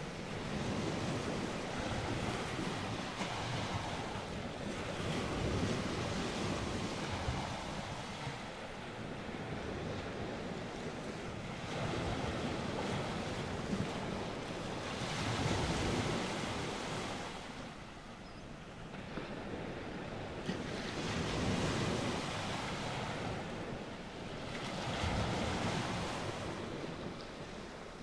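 Ocean waves: a continuous wash of water that swells and eases every few seconds.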